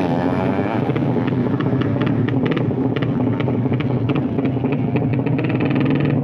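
Suzuki FU drag bike, bored to 200 cc DOHC with twin exhausts, running close by. Its revs settle in the first second, then it runs steadily with irregular sharp pops.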